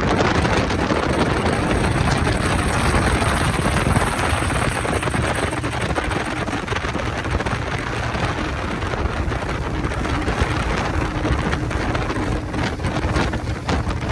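2002 Fountain 35 Lightning powerboat's twin engines running steadily at cruise, with wind rushing over the microphone and spray hissing off the hull.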